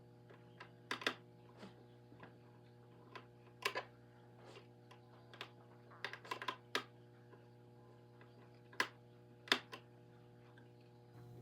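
Irregular sharp clicks and knocks of hard plastic parts being handled, some in quick little clusters, over a steady low electrical hum.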